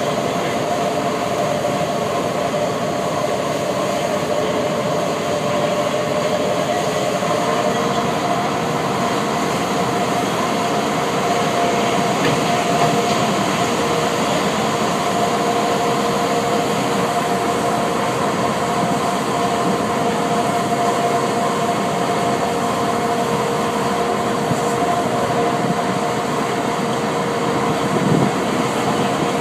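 A river boat's engine running steadily while under way: a constant drone with a steady hum through it.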